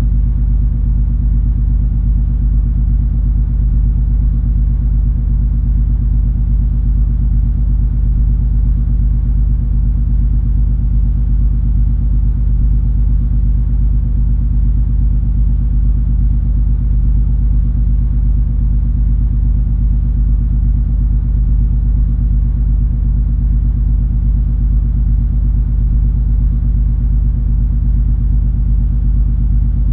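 Steady low drone of the cruise ferry MS Color Fantasy under way: a deep, unchanging rumble from the ship's engines with a steady hum over it.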